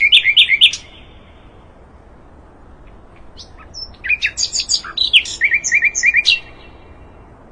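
Sikatan londo songbird singing: a quick burst of high chirps at the start, then after a pause of a few seconds a longer phrase of fast, repeated high notes.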